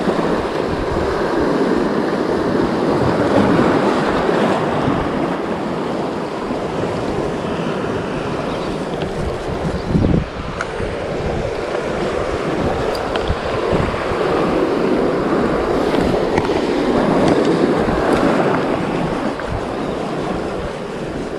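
Sea surf breaking and washing over shoreline rocks, a steady rushing that swells and ebbs with each wave, with wind on the microphone. One brief thump about ten seconds in.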